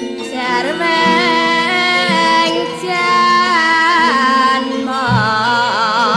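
Javanese gamelan music with a female singer (pesindhen): her voice comes in just after the start over the instruments, and near the end she holds a long note with a wide vibrato.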